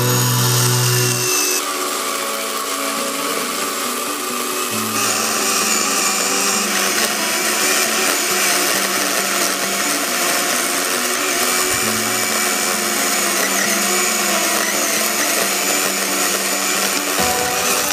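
Greenworks 40V cordless electric chainsaw running steadily as it cuts through a tree trunk, heard under background music with low held notes.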